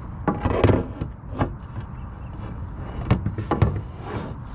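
A handful of short knocks and clunks, several in the first second and a half and two more about three seconds in, over a low steady rumble: gear being handled against a plastic fishing kayak.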